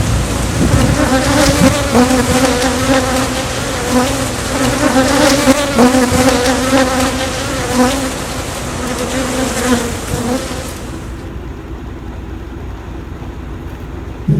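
Honey bees buzzing loudly and close, a dense steady hum broken by a few sharp knocks. The buzzing dies down about eleven seconds in.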